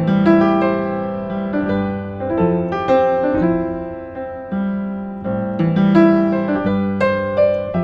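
A 1960s upright piano played: chords and melody notes struck and left to ring, each new chord sounding every half second or so in an unhurried tune.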